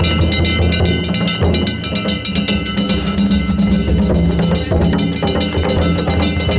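A danjiri float's festival music: a taiko drum beating and small hand gongs (kane) clanging in a fast, dense rhythm, the metal ringing on between strikes.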